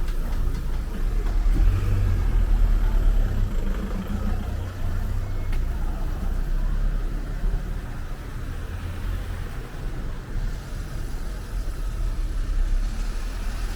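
Motor traffic on a city street: a low vehicle rumble that swells about two to four seconds in, as a car passes, then eases to a steady traffic hum.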